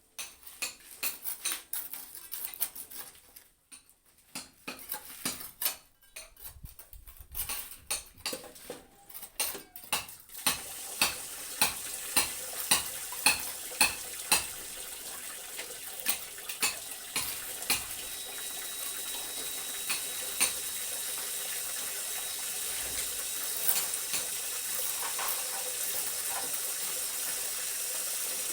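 Irregular clinks and knocks of hard objects, then a steady rushing noise like running water that comes in about ten seconds in and grows a little louder, with a few more clinks over it.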